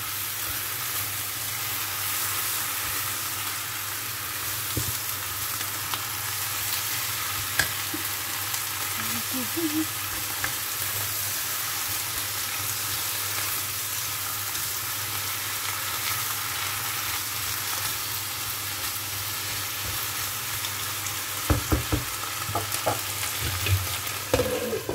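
Bok choy and mushrooms sizzling steadily in a hot wok as they are stir-fried with a spatula, with a few knocks of the spatula against the pan near the end.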